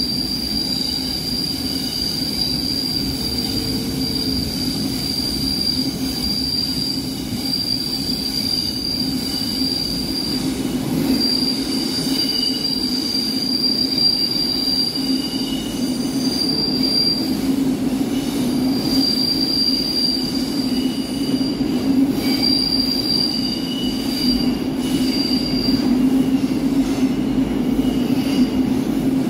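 Stockholm metro train heard from inside a moving car: a steady low rumble of wheels on rail. A high-pitched wheel squeal comes and goes throughout, joined by a second, lower squeal from about halfway through.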